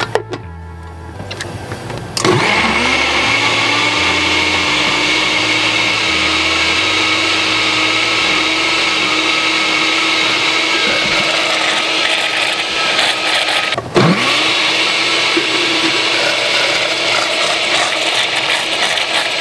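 Countertop blender with a glass jar spinning up about two seconds in and running steadily as it purées sautéed squash, onion and garlic with soy milk into soup. It cuts out briefly about fourteen seconds in and starts again.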